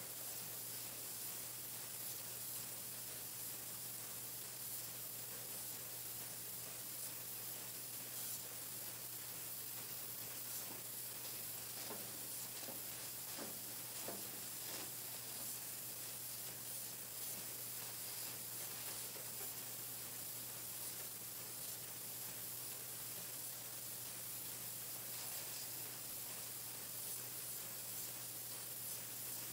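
Pencil painting machine running: a steady, even hiss over a low constant hum.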